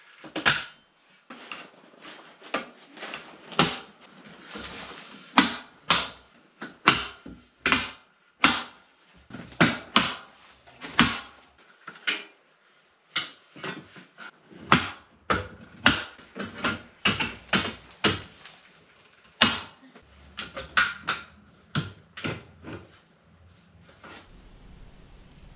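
An irregular run of sharp knocks and clicks from building work on a ceiling, about one to three a second, with a short scraping hiss about four seconds in.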